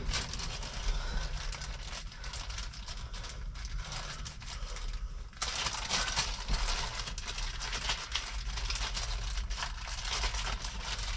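Dense, continuous small clicks and rattles of hands working on small parts, dipping briefly about five seconds in and then a little louder.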